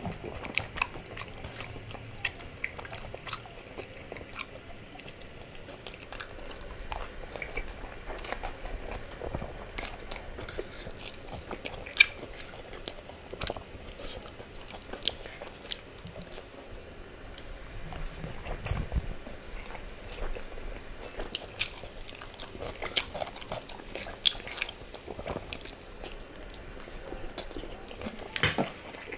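Close-miked eating sounds: spaghetti being chewed, with irregular sharp clicks and scrapes of a metal fork against the plate as the pasta is twirled.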